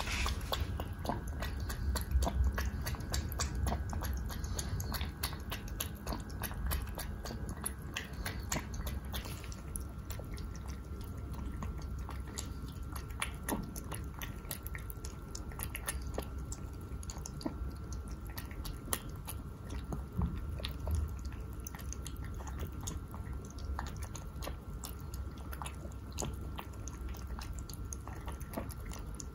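A mameshiba puppy about ten weeks old eating kibble softened in hot water from a bowl: steady wet chewing and lapping, with a dense run of small irregular clicks from teeth and food.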